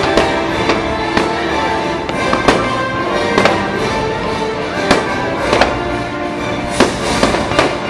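Fireworks bursting, about a dozen sharp bangs at uneven intervals, over loud show music playing throughout.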